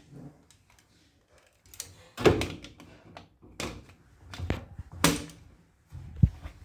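A handful of separate knocks and clunks, about a second apart, with the loudest a little past two seconds in and a sharp one near the end.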